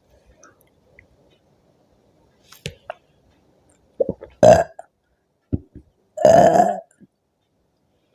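A woman burping after drinking fizzy orange soda. There is a short loud burp about halfway through and a longer, louder one near the end, with a few fainter short sounds between them.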